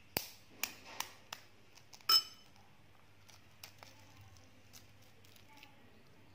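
A boiled fertilized quail egg's shell being cracked and picked off by fingers: a few sharp clicks in the first two seconds, the loudest a ringing clink about two seconds in, then faint small ticks of shell flaking off.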